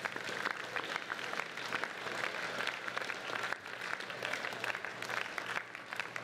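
A large audience of students clapping, a dense, even patter of many hands that holds steady for the whole stretch.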